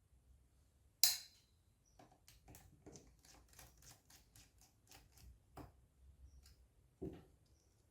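Small clicks and taps of a screwdriver and screws being handled while unscrewing a laptop's bottom cover, with one sharper click about a second in and a run of quick light clicks in the middle.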